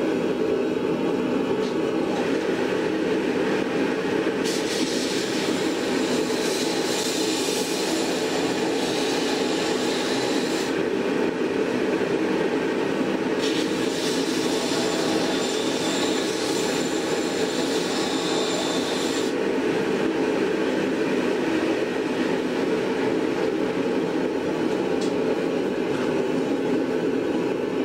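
Belt grinder grinding the edge of a forged steel flower petal, a high hiss in two stretches of about six seconds each, the first starting about four seconds in. Under it a steady roar runs throughout.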